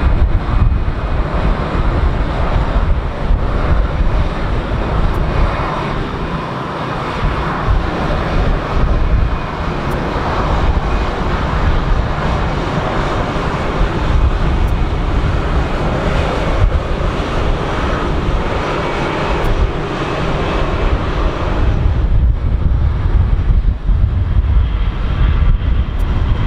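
Airbus A330 jet airliner landing: steady, loud jet engine noise with a deep rumble as it touches down and rolls out along the runway. The sound changes about twenty-two seconds in.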